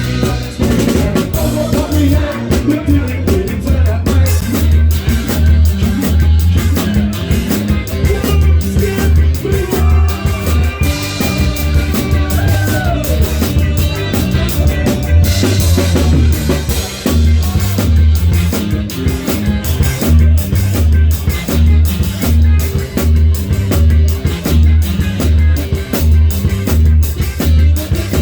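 A live band playing an upbeat number, with a drum kit close up, a heavy bass line and some singing.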